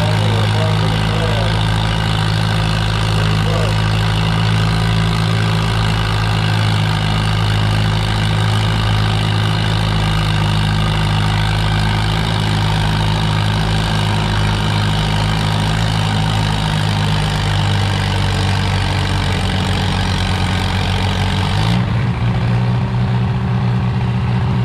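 Tractor engine running steadily under load at a low, even speed; its note shifts near the end.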